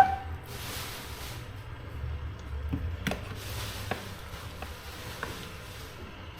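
Kitchen cooking sounds at a pot of braising fish-paste broth: a sharp clink with a short ring as a utensil strikes the pot, then a few light clicks and taps over a low steady rumble.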